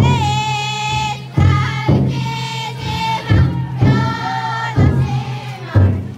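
Futon daiko festival float procession: the taiko drum inside the float beaten in repeated heavy strokes, often in pairs, under the bearers' loud group chanting in long drawn-out calls.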